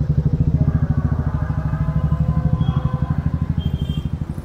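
A vehicle engine close by, running with a fast, even low throb, strongest in the first half.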